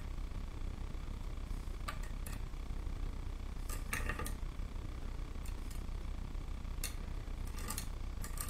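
Scattered light clicks and scrapes as a loom pick strikes and slides against the metal pins of a wooden nail loom while lifting yarn loops over them, over a steady low background hum.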